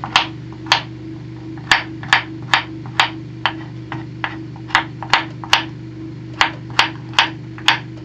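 Kitchen knife chopping carrot on a wooden cutting board: sharp knocks of the blade striking the board, about two a second in uneven runs. A steady low hum runs underneath.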